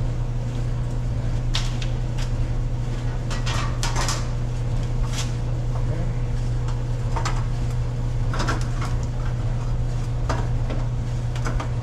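Scattered clicks and knocks as the dryer's control-panel faceplate is handled and clipped back into place, over a steady low hum.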